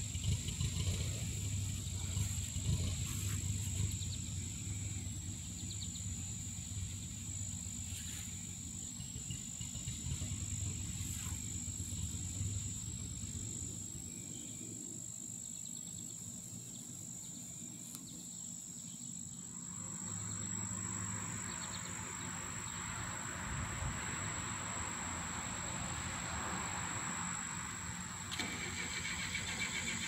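Outdoor background noise with a steady low hum like a distant engine or traffic, and a constant thin high-pitched whine. A soft hiss swells up about two-thirds of the way through, and a fast pulsing buzz starts near the end.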